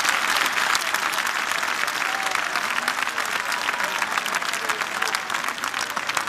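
Large football stadium crowd applauding: thousands of hands clapping at once in a dense, steady patter, with scattered voices among it.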